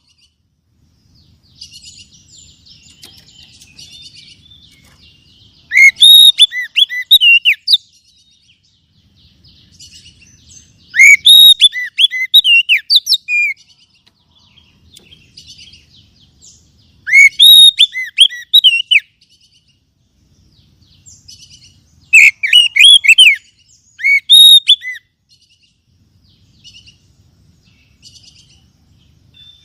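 Oriental magpie-robin (kacer) singing: four loud bouts of rapid, varied whistles and chattering notes, each about two seconds long, with softer twittering in between.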